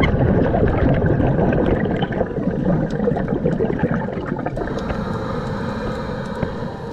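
Scuba regulator exhaust bubbles heard underwater: a loud burst of bubbling and rumbling as a diver breathes out, easing to quieter bubbling after about two and a half seconds.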